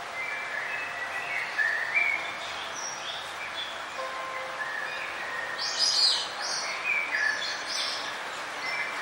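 Songbirds chirping and trilling over a steady background hiss, with a cluster of loud, high chirps about six seconds in.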